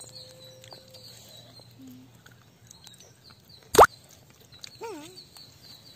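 A child's short, loud rising squeal about four seconds in, followed a second later by a brief wavering vocal sound, over faint steady chirping of insects or birds.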